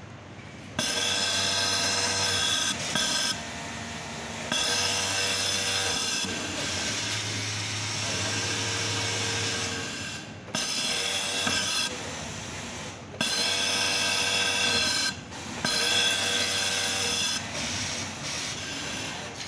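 Pegasus industrial overlock sewing machine running at high speed in repeated runs of a couple of seconds each with short pauses between, a high whine, as T-shirt sleeves are seamed on. A steady machine hum carries on between the runs.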